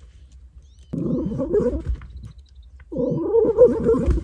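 Small dog growling in play as it bites and shakes a cloth toy: two growls, the second a little longer.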